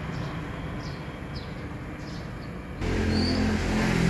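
Steady road traffic noise with a few faint, short high chirps. About three seconds in it cuts abruptly to a louder, steady low hum.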